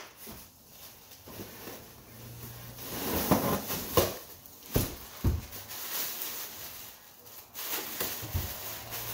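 Plastic packing and bubble wrap rustling and crinkling as a wrapped computer is handled and lifted out of a cardboard box, with a few sharp knocks and crackles in the middle.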